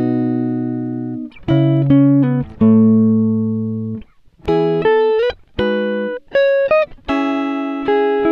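Background music: guitar chords that ring out and fade, with a few notes sliding in pitch and a short break about four seconds in.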